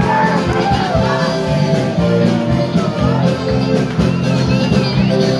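Live band playing music, with electric guitar over a steady drum beat.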